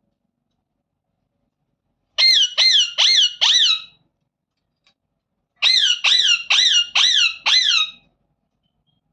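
Indian ringneck parrot calling in two runs of short, repeated calls that each drop in pitch: four calls, then after a short pause five more.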